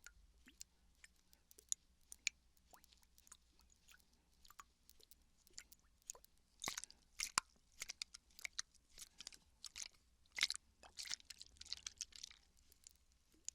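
Water bottle handled close to the microphone, giving quiet, irregular crinkles, clicks and taps that grow busier and louder about halfway through.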